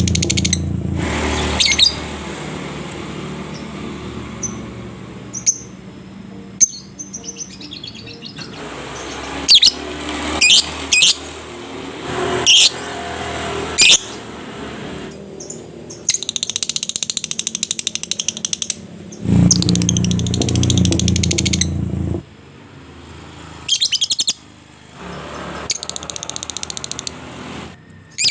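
Lovebird calling: sharp shrill chirps, then the long, fast chattering trill (ngekek panjang) in several runs, each a few seconds long. A low rumble sounds under the calls at the start and again about two-thirds of the way through.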